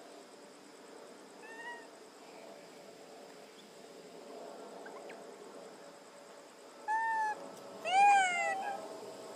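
Infant macaque giving short, high, meow-like coo calls, each rising and then falling in pitch. One faint call comes about a second and a half in, then two louder ones near the end, the last of them the loudest.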